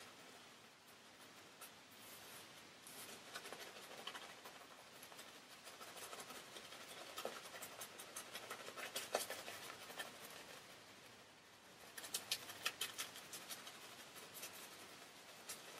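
Shaving brush working lather onto a stubbled face: soft, scratchy brushing with faint crackles in uneven strokes, with a busier run of crackles near the end.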